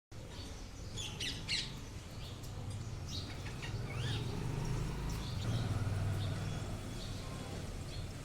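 Birds chirping and calling in short, separate calls, with a quick cluster of calls about a second and a half in, over a steady low rumble.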